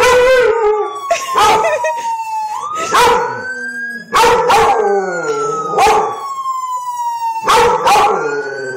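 A dog howling and giving short barks in answer to a siren, which wails in slow sweeps, falling, rising and falling again. The dog howls at the start and barks several times over the wail.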